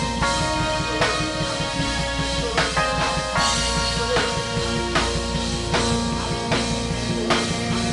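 Live worship band music: drum kit keeping a steady beat under held keyboard and guitar chords.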